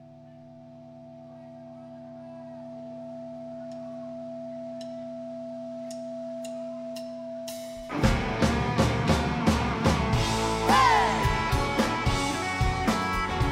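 Live rock band: a held chord swells in slowly with a few faint ticks over it, then about eight seconds in the full band comes in loud with drums and electric guitars, a lead guitar bending notes soon after.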